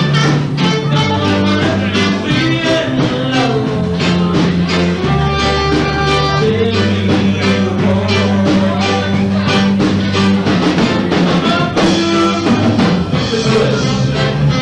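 A live band playing, with electric guitar, bass and a drum kit keeping a steady beat.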